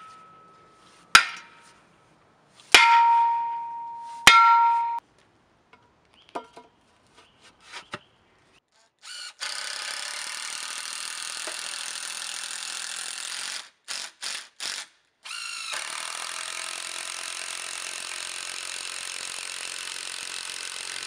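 Hammer blows on a steel ground-anchor post sleeve, three strikes in the first few seconds, the later two leaving a ringing metallic tone. From about nine seconds in, a cordless drill runs steadily driving screws into the wooden arch, stopping briefly twice around the middle before running on.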